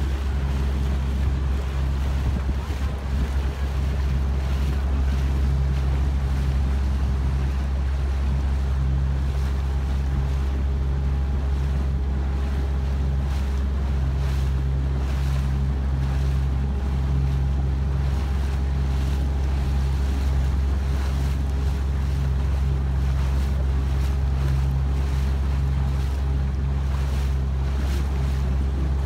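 Small motorboat's engine running steadily at low speed, a constant low drone, with wind buffeting the microphone and water washing past.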